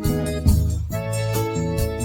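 Instrumental karaoke backing track of a forró xote song: sustained keyboard-like chords over a steady beat, with no vocals.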